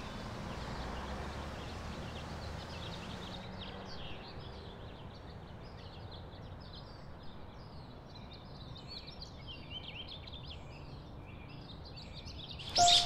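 Woodland birdsong: several small birds chirping and trilling over a steady background hiss.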